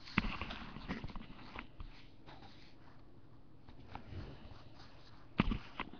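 Handling noise from a small cold-porcelain figurine and hands on a tabletop: soft rustles and light knocks, with a sharper knock just after the start and two more close together near the end.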